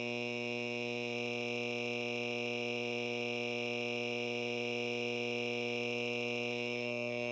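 A sustained electronic synthesizer chord, many tones held at one steady level without change.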